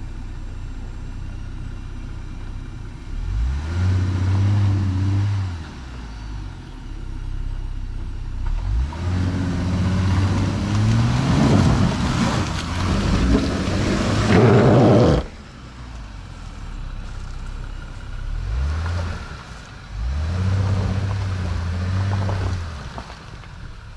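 Jeep Gladiator's engine revving up in several bursts as it crawls through deep mud ruts. The longest, loudest push comes in the middle with a rush of tyre and mud noise that cuts off suddenly.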